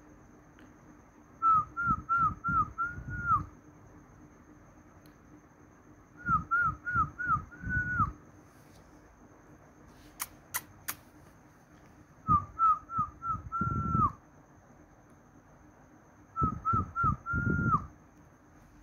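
A short whistled phrase, four quick notes and a longer held one that drops at the end, repeated four times about every four to five seconds, with low thumps under each phrase. Three sharp clicks come about halfway through.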